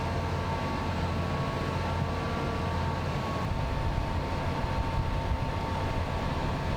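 A large engine running steadily, such as on the machinery lifting the tree into place: a continuous low hum with faint, steady whining tones above it.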